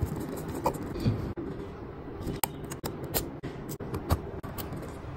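Small, sharp metallic clicks and ticks, irregular and about a dozen in all, from a precision screwdriver working the tiny screws and metal brackets inside an opened iPhone 13 Pro Max. The loudest clicks come about two and a half, three and four seconds in, over a steady low background hum.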